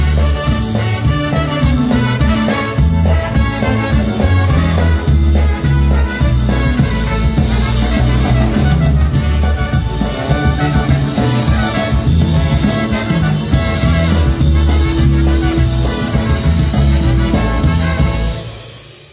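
Live polka band with brass playing an instrumental passage at a steady beat, coming to an end on a final chord about eighteen seconds in.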